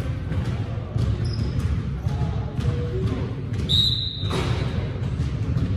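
A basketball bouncing on a gym floor in play, over a steady low hall rumble, with brief high squeaks of sneakers. About four seconds in comes a short, high whistle blast.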